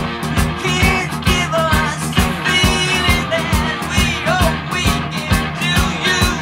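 Upbeat rock-style music with a steady drum beat.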